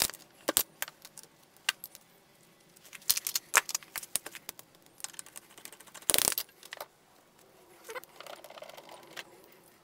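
Metal hand tools and small metal engine parts clinking and clicking against a steel parts tray and workbench. About a dozen sharp clinks come at irregular spacing, with a short cluster about three seconds in and the loudest about six seconds in.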